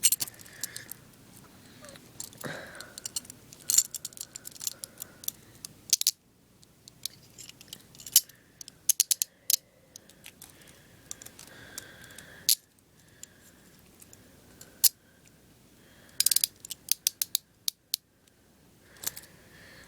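Hinged metal handcuffs being handled, with sharp metallic clicks and rattles. There are quick runs of several clicks about eight seconds in and again about sixteen seconds in.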